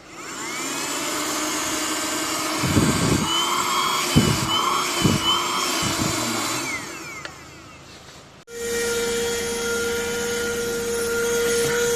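Vacuum cleaner motor whining up to speed and running, with several heavy knocks in the middle, then winding down about seven seconds in. After a sudden cut, a different steady motor hum with a clear steady tone takes over.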